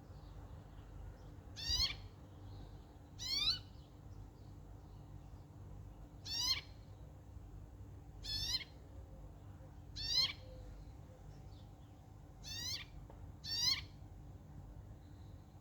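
A bird giving seven short calls, each a quick downward-sweeping note, spaced irregularly one to three seconds apart.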